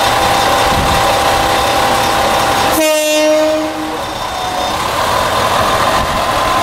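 Moka Railway Moka 14 diesel railcar idling with a steady engine rumble. About three seconds in, one horn blast of about a second sounds, and then the idling goes on.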